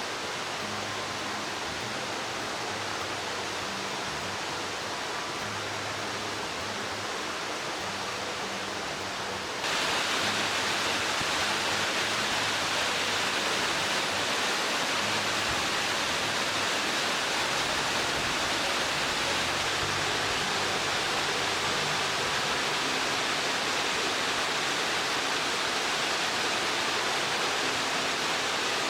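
Waterfall rushing, a steady roar of falling water that becomes louder and brighter about ten seconds in.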